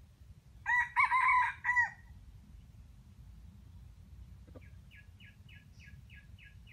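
Red junglefowl rooster crowing once, a short crow of a little over a second. Near the end comes a fainter run of short, evenly spaced chirps.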